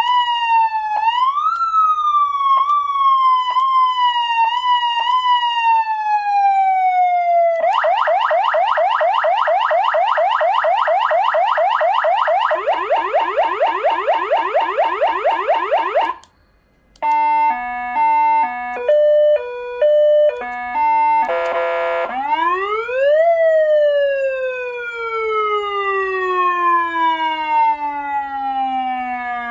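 SA830 400-watt electronic siren amplifier sounding through its speakers and switching between siren tones. First comes a wail that climbs and falls, jumping back up about once a second. Then come very fast yelp sweeps, several a second, dropping lower partway, then a brief cutout, a stepped pattern hopping between a few fixed pitches, a short buzzy horn-like tone, and finally a wail that rises and then slowly winds down.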